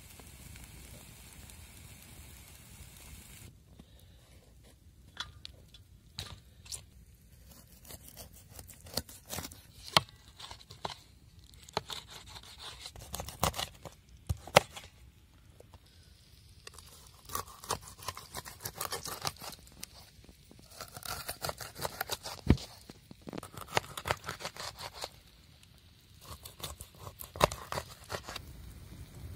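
A knife cutting a whole grass carp (white amur) crosswise into steaks on a plastic cutting board: irregular crunching and scraping as the blade goes through scales and backbone, with sharp clicks. For the first few seconds, before the cutting starts, a wood fire burning with a faint steady hiss.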